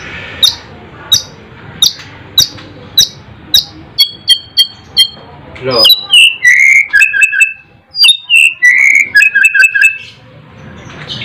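White-rumped shama singing: a string of sharp calls about twice a second, then a quick run of short notes, then clear whistled phrases until near the end.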